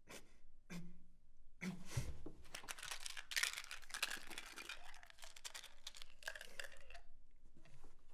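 Crinkling, crackling and tearing of a small wrapper being worked open in the hands, dense from about a second and a half in until near the end, after a couple of soft knocks and a low thud.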